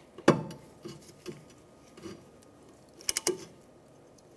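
Brake caliper piston compression tool being worked against the piston, giving a few sharp metallic clicks: one loud click just after the start, a few softer ones, and a quick run of clicks about three seconds in.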